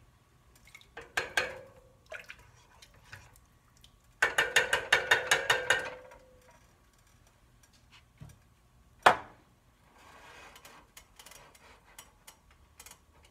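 A slotted spoon stirring soup in a stainless steel pot, knocking against the pot with a short metallic ring, then a quick run of about ten taps against the pot. About nine seconds in comes a single sharp clack as the spoon is set down on the stovetop, followed by faint scraping of the pot.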